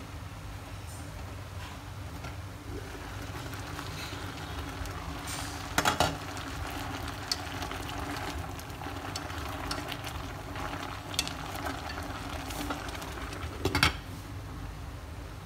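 Water spinach boiling in a stainless steel pot, with a steady bubbling hiss. A glass pot lid clinks as it is lifted off about six seconds in, wooden chopsticks tap against the pot as they stir the greens, and the lid clanks back onto the rim near the end.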